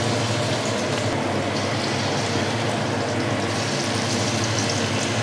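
Corn-fritter batter sizzling and crackling as it fries in hot oil in a stainless steel wok: a steady, dense sizzle with a low steady hum underneath.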